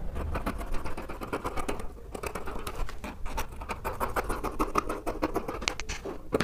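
Dressmaker's scissors cutting through knit lining fabric: a continuous run of quick snips, each with a sharp click and a scratchy rasp.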